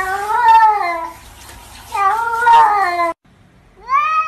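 Cats meowing. Two long, drawn-out meows bend up and down in pitch. After a brief break about three seconds in, another cat starts a rising meow.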